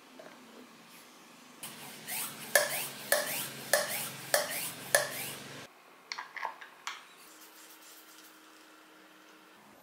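Plastic and metal parts of a homemade PVC-pipe hand pump being worked together by hand: a run of about six sharp scraping clicks roughly half a second apart, then a few lighter clicks.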